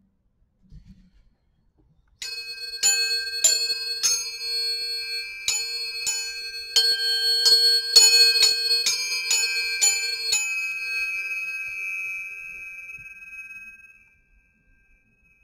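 Metal tuning forks struck against each other again and again, about a dozen sharp clinks over some eight seconds, each setting off clear ringing tones over a steady lower hum. The strikes and the hum stop about ten seconds in, and the higher tones ring on and fade away.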